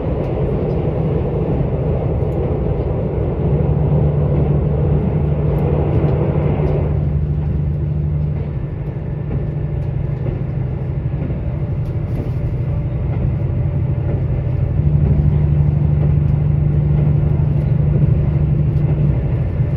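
A KiHa 85 diesel railcar running at speed, heard from inside the passenger cabin: the diesel engine's steady low hum under wheel and running noise. The running noise is louder for the first seven seconds or so, then drops back, and the engine hum swells again about fifteen seconds in.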